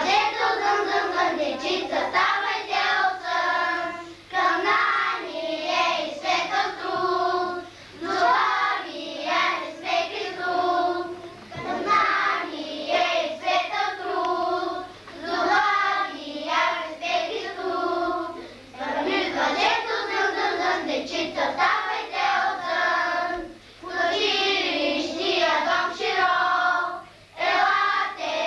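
A class of first-grade children singing a song together in unison, in short phrases with brief pauses between them.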